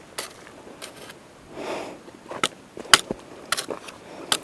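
Irregular sharp clicks and crunches with a short soft rustle about a second and a half in: a hiker's footsteps on dry, rocky ground.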